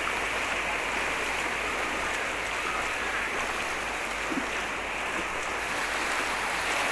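Floodwater rushing and splashing across a submerged path: a steady, unbroken rush.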